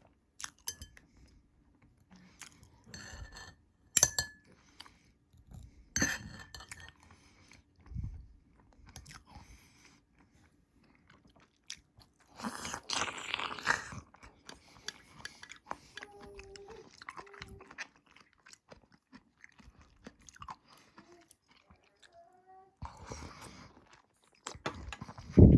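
Close-miked chewing and crunching of food, with irregular sharp crunches and a denser stretch of crunching about halfway through.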